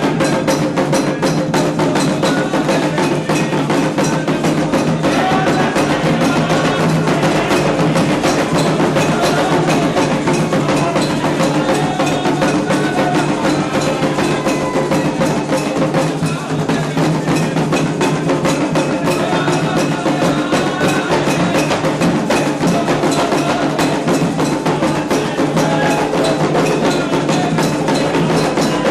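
Candomblé ritual music: hand drums and a struck bell or wood-block sound keep a fast, steady rhythm, with voices singing over them.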